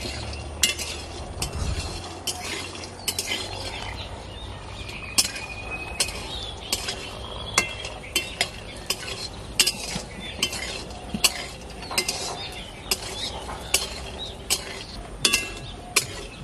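Metal spatula scraping and clinking against a steel karahi as bori (sun-dried lentil dumplings) are stirred while they fry in mustard oil, with a faint sizzle of the oil underneath. The clinks come irregularly, about one or two a second.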